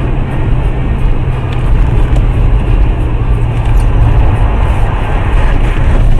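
Car driving at speed on a snowy highway, heard from inside the cabin: a steady low drone of engine and tyre noise.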